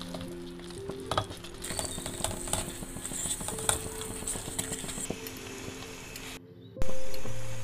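Pav bhaji vegetable mash being stirred and mashed in a pot with a spatula: soft scraping and squelching with many small clicks, and a faint sizzle in the pot. The sound drops out briefly near the end before a louder note.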